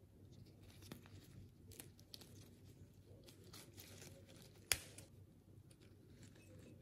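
Faint rustling and crinkling of peony petals handled by fingers, with one sharp click a little under five seconds in.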